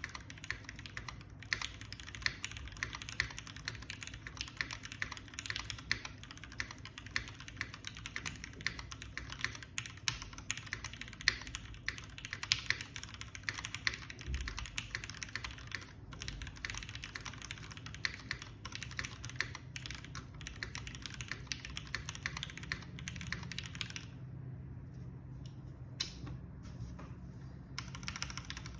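Typing on a Lamy TKL mechanical keyboard with lubed Gateron Mizu Minks switches on an O-ring-mounted aluminium plate and GMK keycaps: a fast, steady run of keystrokes. Near the end the typing stops for about three seconds, with only a few single key presses, then picks up again.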